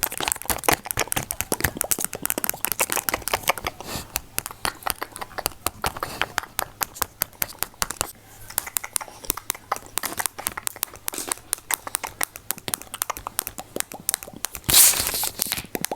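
ASMR close-up triggers right on the microphone: rapid, irregular clicking and crackling, like fingertip tapping or wet mouth clicks. Near the end comes a short, louder rush of noise.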